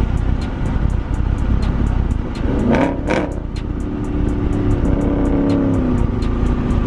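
Car engine revving up in a quick rising sweep about three seconds in, then holding a steady note for a few seconds, over a constant road rumble, with music with a fast ticking beat playing.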